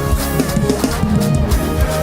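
Live band music with guitar, bass and drums playing in a steady groove.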